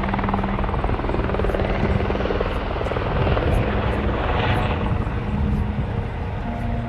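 Sightseeing-tour helicopter running, its rotor and turbine engine making a steady drone with a low held engine tone.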